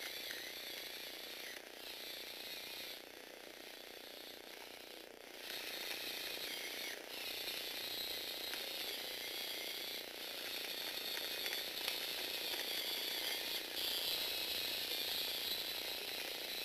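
Small electric motors driving a Lego Technic vehicle's plastic gear trains: a steady whirring whine with gear chatter. It dips briefly a few times early in the run and goes on louder from about five seconds in.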